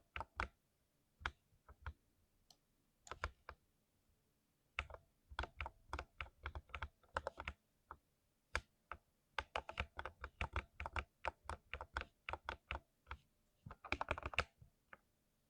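Typing on a 60% keyboard, key clicks coming in irregular runs. Single strikes with short pauses give way to quick bursts of typing and a dense flurry of keystrokes near the end.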